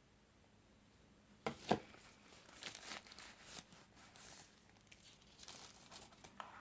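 Packaging being handled while unboxing a phone: it crinkles and tears, with a sharp double crackle about a second and a half in, then irregular rustling.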